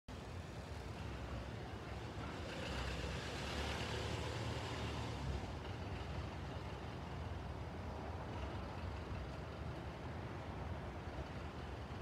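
Steady low background rumble of distant vehicles, swelling with a wider hiss about three seconds in and easing off after about five seconds.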